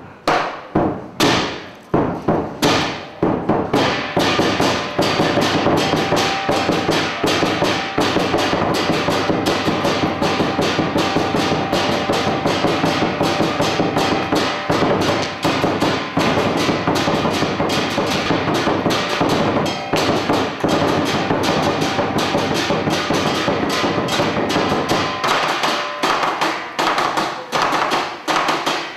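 Fast percussion music: a few heavy separate strikes, then a rapid, unbroken stream of drum beats and ringing metallic crashes, in the manner of a Chinese drum-and-cymbal accompaniment for a martial arts form.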